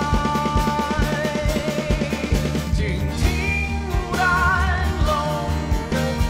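Live band playing a song: a male voice and violin carry a wavering melody over electric bass, keyboard and a steady drum beat.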